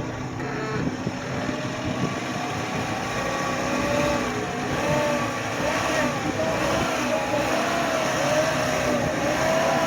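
Off-road vehicle's engine revving up and down in short pulses as it crawls over an obstacle, its pitch rising and falling again and again.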